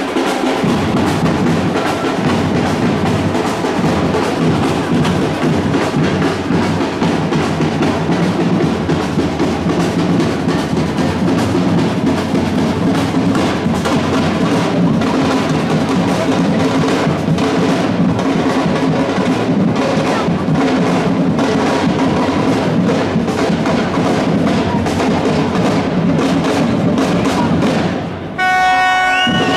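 Drum-heavy music, with many percussion hits over a continuous band sound. Near the end it breaks off briefly and gives way to music with clear held notes.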